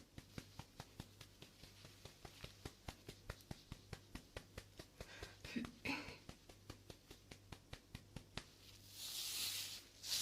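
A steady run of sharp ticking clicks, about four to five a second. A brief low voice sound comes about halfway through, and a soft whisper near the end.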